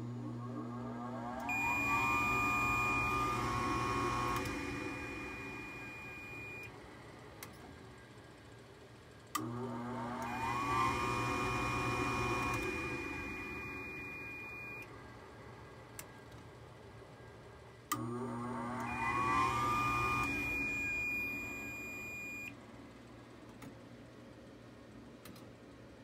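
A Rheem gas furnace's induced draft blower motor is switched on three times, about nine seconds apart. Each time it starts with a click and spins up with a rising whine. About a second and a half later, a multimeter's continuity beep sounds steadily for several seconds as the motor's vacuum pulls the pressure switch closed, then the beep stops and the motor sound fades away.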